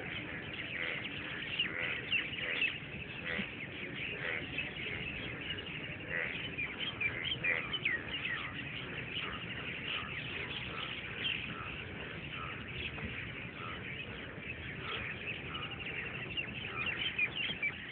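Many birds calling at once, a dense chorus of short chirps with no pause: a dawn chorus before sunrise.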